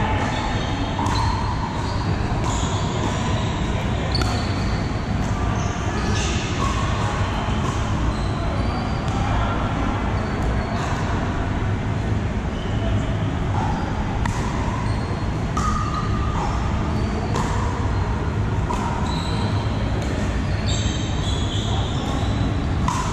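Pickleball paddles hitting a plastic ball, many sharp clicks scattered irregularly from this and neighbouring courts, echoing in a large hall over a steady low hum and background chatter.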